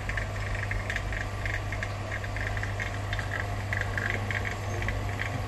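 Nasan Supa Lite Max phone-screen refurbishing machine running mid-cycle: a steady low hum with a fast, uneven rattling over it.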